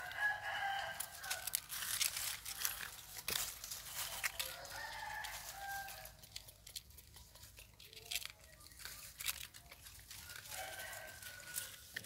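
Dry leaf litter crackling and rustling in sharp clicks, with a drawn-out pitched animal call heard three times: near the start, about five seconds in, and near the end.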